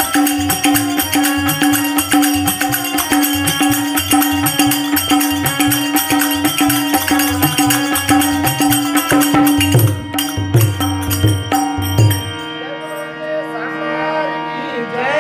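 Telugu devotional bhajan music: a harmonium holds a steady drone while tabla and small hand cymbals keep a fast beat. About twelve seconds in, the drums and cymbals stop after a last flurry of strokes, leaving the harmonium sustaining a chord.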